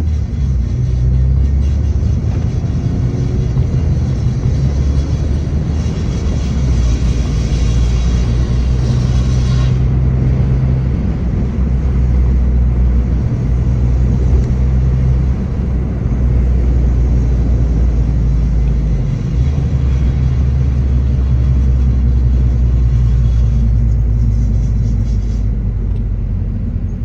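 Suzuki Swift Sport (ZC33S) being driven, a steady low drone of engine and road noise. It carries the abnormal noise that the car makes while driving, which is not identified.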